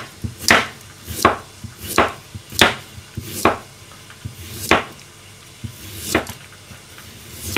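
Kitchen knife slicing a carrot into rounds on a cutting board: a sharp knock as each cut hits the board, about eight cuts, coming further apart toward the end.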